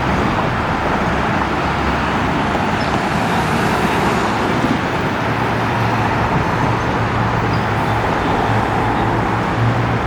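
Steady road traffic noise. A low engine hum joins about halfway through and grows stronger near the end.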